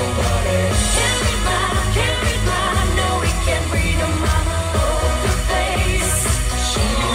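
A pop song playing, a singing voice over a steady beat.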